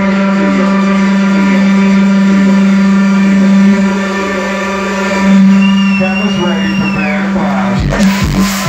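Electronic dance music breakdown over a club sound system: a sustained synth drone under a falling pattern that repeats about twice a second, with a tone that glides up and back down. Near the end the beat drops in, a kick drum hitting a little over twice a second.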